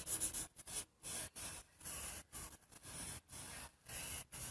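Pencil sketching on drawing paper: a run of short scratchy strokes with brief gaps, about two to three a second, as lines are drawn in.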